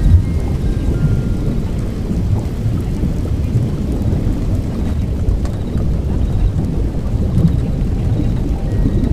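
Steady low rumbling of a thunderstorm ambience with rain.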